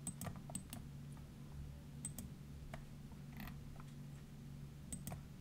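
Faint light clicks from a computer mouse, mostly in close pairs, as the on-screen page is scrolled, with a soft rustle a little past halfway. A low steady hum lies underneath.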